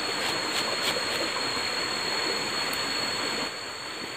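Small forest stream flowing, a steady rushing of water, with a thin, steady high-pitched tone running over it. The water sound drops a little about three and a half seconds in.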